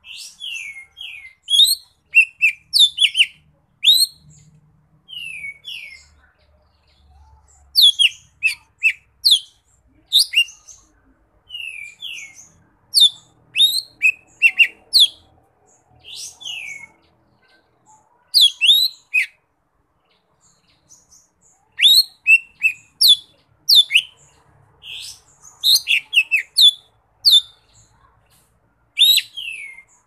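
Caged male green leafbird (cucak ijo mini) singing actively: phrases of quick, sharply down-slurred high whistles and chirps, repeated one after another with short pauses between them.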